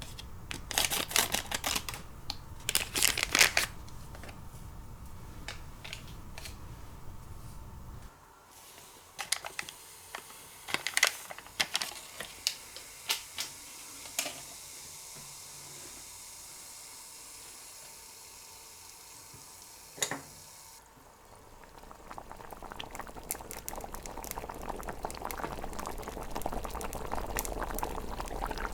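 Light clicks and clatters of small toy cookware being handled, in two dense clusters and then scattered taps. About three-quarters of the way through, a bubbling, boiling sound fades in and grows louder.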